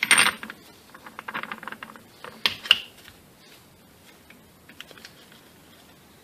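Steel gears and synchronizer parts of a Honda D16 five-speed manual transmission clicking and clinking as they are handled and turned on the shaft: a quick run of small clicks, then one sharp ringing metal clink about two and a half seconds in, and a few light ticks after.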